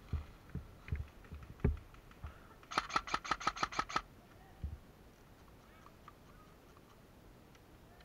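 An airsoft gun firing a short burst of about nine shots, roughly eight a second, lasting just over a second. Before it come a few dull low thumps.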